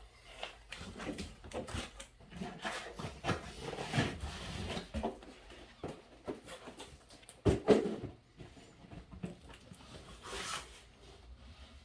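Cardboard box and packing material being handled and rummaged through, with scattered rustles and knocks and one louder thump about seven and a half seconds in.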